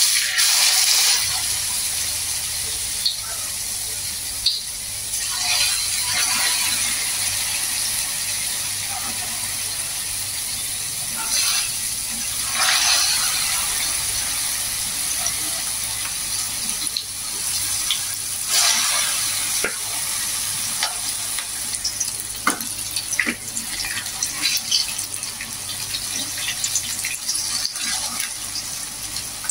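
Tofu-and-batter patties frying in hot oil in a wok: a steady loud sizzle with sharp crackles, starting suddenly as the first spoonful of batter drops in. The sizzle swells several times as more batter goes into the oil.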